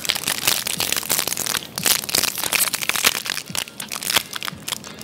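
Plastic Snickers chocolate-bar wrappers crinkling and crackling as two people tear them open by hand, a dense run of sharp crackles.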